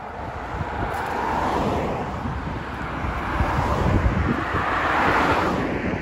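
Road traffic passing close by: a car's tyre and engine noise swells as it approaches and passes, peaking about five seconds in and then fading, with wind rumbling on the microphone.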